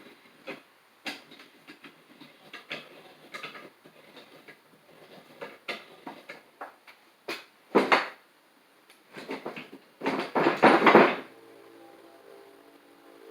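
Metal parts of a bench vise clinking and knocking as it is reassembled by hand, with two louder bursts of metallic rattling about eight and ten seconds in.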